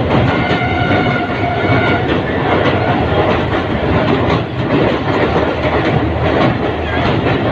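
Mehran Express passenger train running on the track, heard from on board as a loud, steady rumble and rattle of the wheels and carriages. A brief steady whine sounds over it in the first two seconds.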